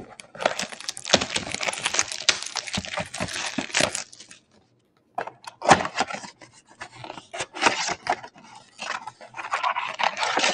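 A cardboard football trading-card box being torn and pried open by hand: crackling, rustling and tearing of cardboard and wrapping for about four seconds, a short pause about halfway, then more tearing and crackling.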